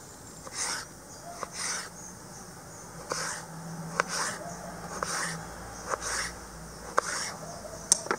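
Kitchen knife slicing a peeled raw potato into thick slices on a wooden chopping board: a crisp cutting sound about once a second, with a few sharp taps as the blade meets the board.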